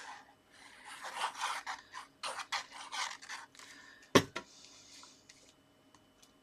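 Paper and card being handled and rubbed down as a patterned paper layer is pressed onto a black card mat: a run of rustling, scraping strokes, then one sharp knock about four seconds in and a little fainter rustling.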